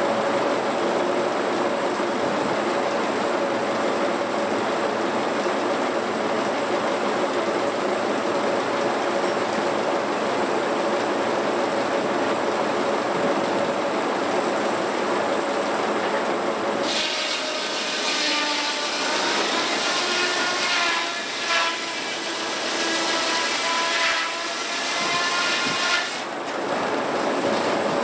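Antique circular sawmill running steadily, then from about 17 s to 26 s its big circular blade cutting through a log, a whine that wavers in pitch as it goes through the wood.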